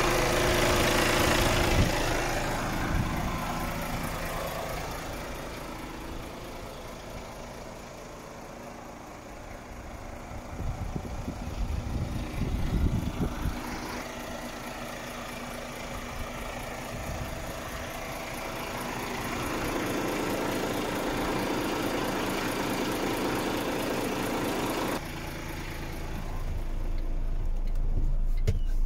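Iveco Stralis truck's six-cylinder diesel engine idling steadily, its hum rising and falling in loudness as the microphone moves around the truck and into the cab.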